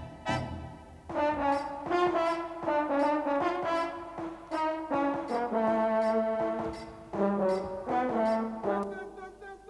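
Music carried by a brass melody of held notes in a trombone-like register, changing pitch every half second or so. A few thumps sound in the first second.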